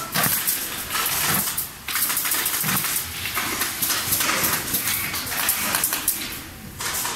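Rustling and crackling of black leather upholstery on a recliner arm as gloved hands work it and pull a wire through. The sound is a dense run of small clicks with short pauses about two seconds in and near the end.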